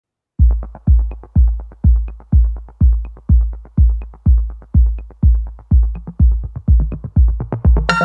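Electronic background music with a steady kick drum about twice a second and lighter ticks between the beats, starting just after the beginning; a fuller synth part comes in near the end.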